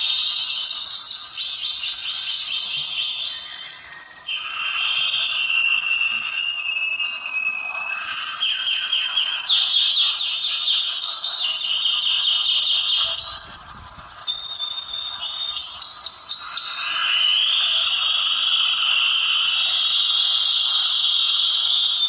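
A flock of finches chirping and twittering without a break, many high-pitched calls overlapping into a dense chatter of fast repeated notes.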